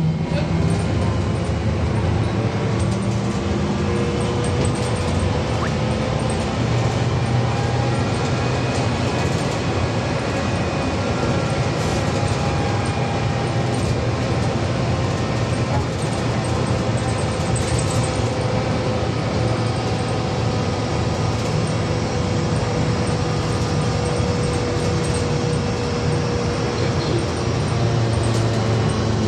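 Inside a VMZ-5298.01 trolleybus under way: a steady rumble of the running trolleybus, with thin whining tones from its electric drive that drift slowly up and down as the speed changes.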